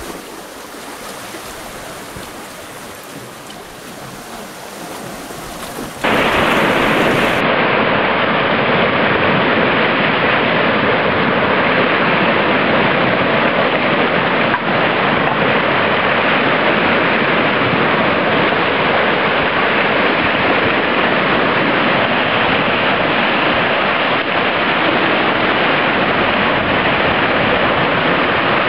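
Ocean waves washing against a rocky shore, fairly quiet at first. About six seconds in there is a sudden jump to the loud, steady rush of surf breaking over boulders.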